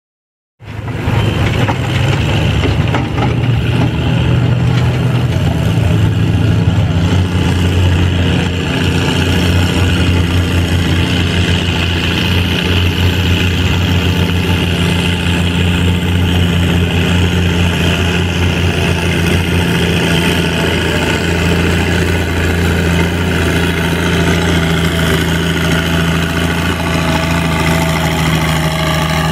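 Antique Oliver tractor's engine working hard under steady load as it pulls a weight-transfer sled, holding a nearly constant pitch. It starts abruptly about half a second in.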